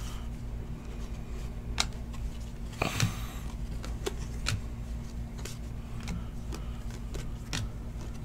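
Trading cards being flipped through by hand: scattered light clicks and slides of card against card, a slightly louder one about three seconds in, over a steady low hum.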